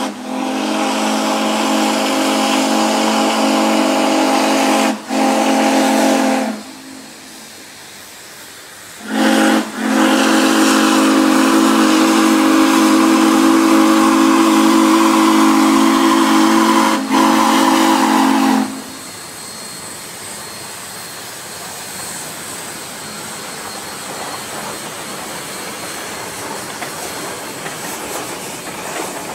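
Steam whistle of Shay geared steam locomotives sounding two long, steady chime blasts, each with a brief break in it. After the whistle stops, a steady hiss of escaping steam as the locomotives work.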